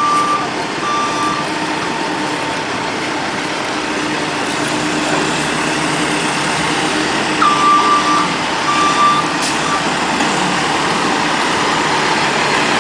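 Back-up alarm of a work vehicle beeping about once a second: two beeps at the start, then a pause, then beeping again from about seven and a half seconds in. Under it a vehicle engine runs with steady outdoor machinery and traffic noise.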